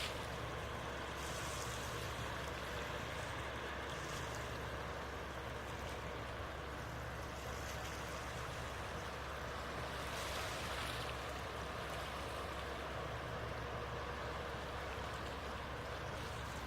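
Large passenger ferry leaving port: a steady low engine rumble under an even rushing wash of water and air noise.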